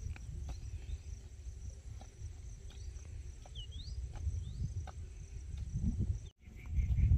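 Forest ambience: a steady high insect drone with a few short rising chirps and scattered light clicks over a low rumble. Near the end the sound cuts out for a moment, then a pulsing trill starts up over a louder rumble.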